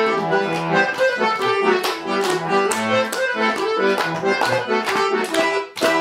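Accordion playing a chastushka tune between sung verses: held chords that change with a steady rhythm of accented notes.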